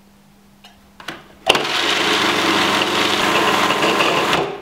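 A couple of short clicks, then a food processor's motor running steadily for about three seconds as it purées herbs, pine nuts, garlic and olive oil into pesto, cutting off shortly before the end.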